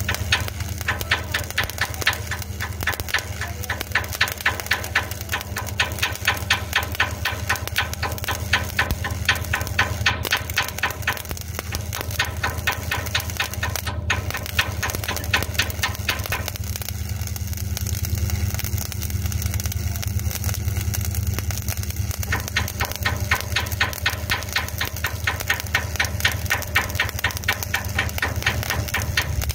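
Overhead stick (electrode) arc welding on a steel hull: the arc crackling and spitting, with an engine running steadily underneath. The crackle eases for a few seconds past the middle, then picks up again.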